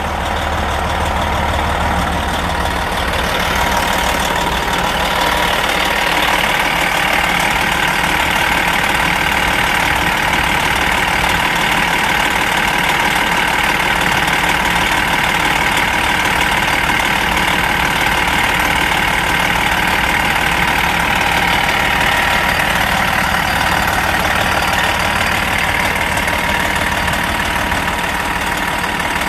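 Diesel engine of a Prevost coach motorhome starting up and settling into a steady idle.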